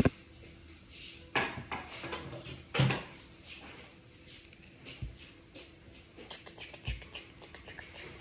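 Homemade slime being handled and squished by hand: two louder squishes, about one and a half and three seconds in, then a run of small crackles and clicks.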